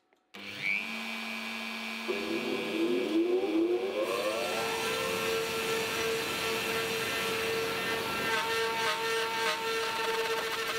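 A workshop dust collector switches on and runs steadily. About two seconds in, the CNC router's spindle spins up with a rising whine that settles into a steady high hum. Faint scraping ticks come near the end as the bit starts into the wood.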